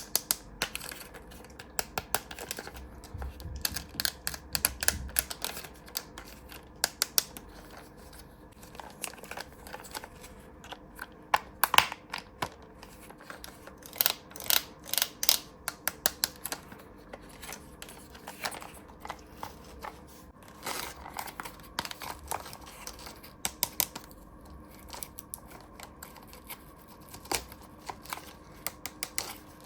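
Plastic toy pieces and packaging of a Peppa Pig playset being handled and unboxed: many irregular, sharp clicks and taps, a few louder clacks about twelve and fifteen seconds in.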